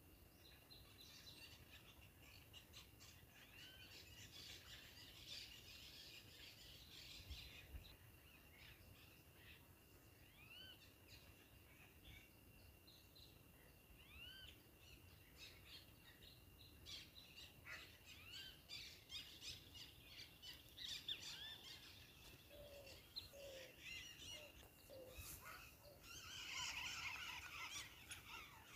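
Faint wild birdsong: scattered short chirps and whistles over a faint steady high tone, with a louder, denser burst of birdsong near the end.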